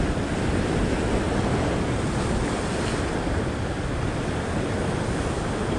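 Ocean surf washing over a rocky shore ledge, with wind buffeting the microphone.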